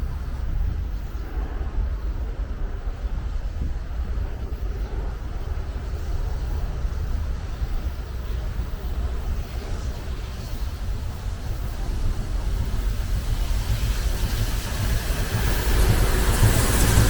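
A train running on the rails: a steady low rumble that starts suddenly and grows louder over the last few seconds.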